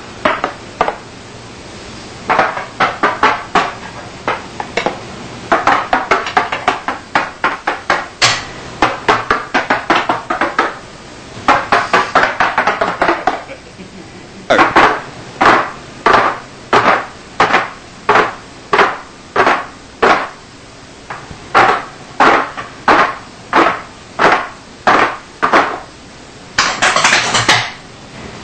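Metal forks and knives rapped on a table in unison by a row of people, sharp taps in a drill rhythm. Fast rattling runs of taps come in the first half, evenly spaced single taps in the second half, and a short dense flurry near the end.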